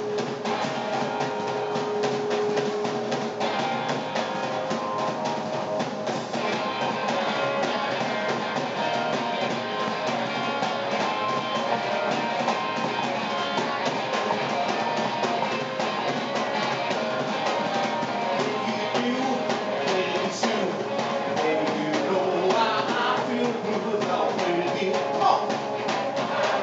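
Live rock and roll band playing: hollow-body electric guitar, upright double bass and drum kit in a fast, steady beat, with a voice singing over it in the later part.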